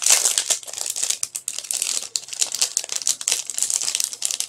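Small plastic packet crinkling and crackling as it is handled and opened, a dense run of sharp rustles without pause.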